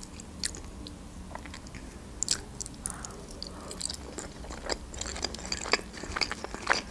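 A person chewing a mouthful of soft meat-filled gyurze dumpling, with scattered small mouth clicks.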